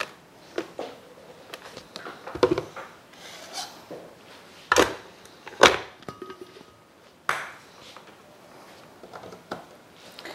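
Glass kitchenware handled on a countertop: a glass blender jar set on its base and its lid pressed on, giving about five sharp knocks and clinks spread over several seconds.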